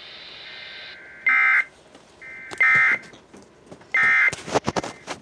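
Emergency Alert System end-of-message data tones: three short, loud, screechy digital bursts about a second and a half apart, signalling that the flash flood warning broadcast is over. Fainter tones sound between the bursts, with radio hiss at the start and a burst of crackling clicks near the end.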